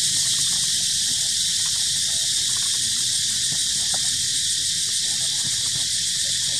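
Steady, high-pitched drone of a dense insect chorus, unchanging throughout.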